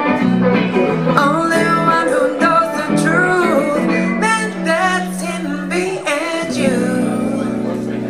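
Live acoustic set: a woman singing into a microphone over strummed guitar chords, her voice dropping out about six seconds in while a chord rings on.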